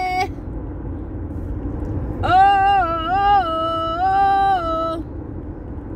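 A woman sings a wordless phrase of a few held notes, stepping up and down in pitch, starting about two seconds in and ending about five seconds in. Under it runs the steady low road and engine noise of the car's cabin.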